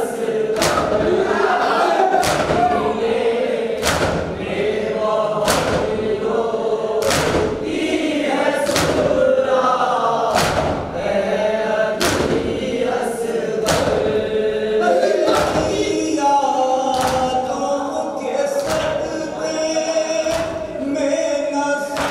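A group of men chanting a noha, a Shia lament, in unison, with a loud collective slap of matam chest-beating landing about every second and a half in time with the chant.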